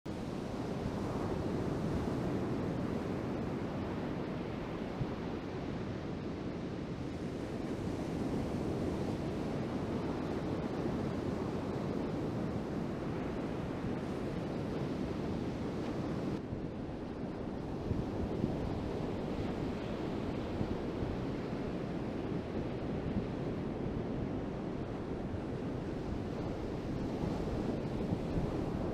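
Strong wind buffeting the microphone over the steady rush of ocean surf.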